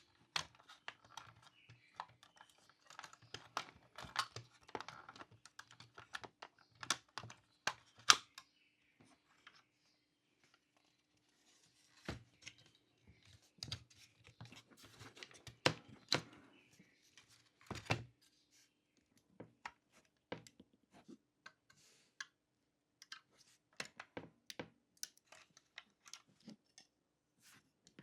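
Small clicks, taps and rustling from the parts of a 1:18 scale model car being handled and worked on by hand. The sounds come in irregular clusters, with a pause of a couple of seconds about ten seconds in.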